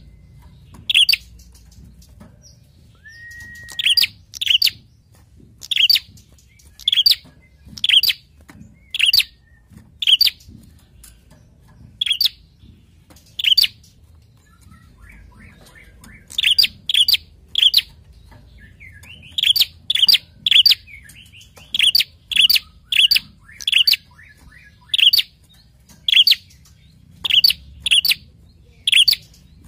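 Caged ashy tailorbird (prenjak) giving loud, sharp chip calls about once a second, some in quick pairs, with a short break about halfway through: the agitated, excited calling that birdkeepers use as a lure recording.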